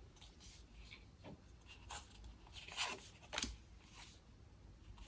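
Postcards being handled and slid against one another: a few soft, brief paper scrapes and rustles.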